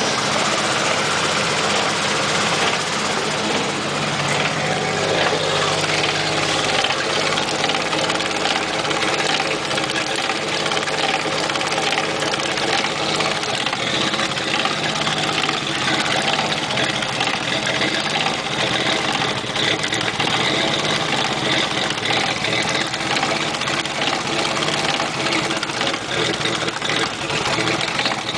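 Jeep Wrangler running with its rear drivetrain turning a rear wheel: a steady engine and driveline running sound, with no sudden changes.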